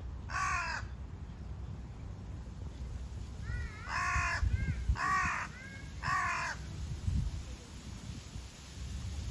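Crows cawing in short, harsh calls: one caw about half a second in, then three more about a second apart from about four seconds in, with fainter answering calls between them.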